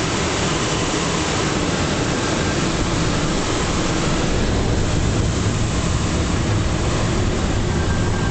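Steady rush of air over the cockpit canopy of a Schleicher ASK 13 glider flying a fast low pass. The glider has no engine, so the sound is airflow noise.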